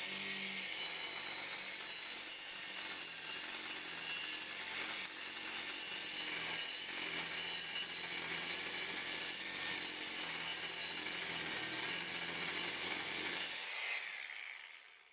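Bosch angle grinder with a carving disc running steadily while it grinds and shaves into a block of wood, a high motor whine over the rasping of the disc on the wood. It stops near the end.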